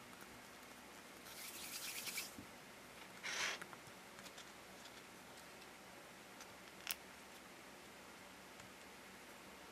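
Faint handling noises of fingers working soft modelling clay against a rubbery mold: a rustling scuff from about one to two seconds in, a louder short scrape a little later, and a single sharp click near seven seconds.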